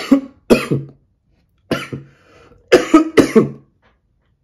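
A man's coughing fit: about six sharp coughs in two runs, with a faint breath between them. The coughing comes from smoking a King Palm smoke.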